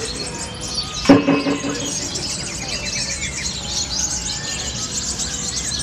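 Many caged contest songbirds chirping and singing over one another in dense, rapid trills. A brief loud shout from a person cuts across them about a second in.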